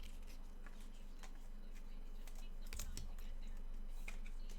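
Scattered light clicks and taps, several a second and uneven, over a steady low electrical hum.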